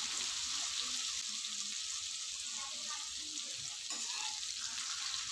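Hot oil sizzling steadily in a kadhai with cumin seeds frying in it, with a few faint crackles.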